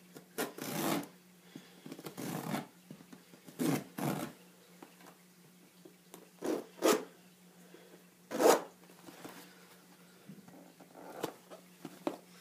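A package being unboxed: a series of short scraping and rustling noises as the packaging is handled and opened, over a faint steady low hum.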